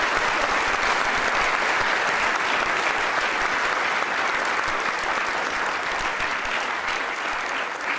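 Audience applause from a crowd in a lecture hall, welcoming two debaters, dense and steady and dying away near the end.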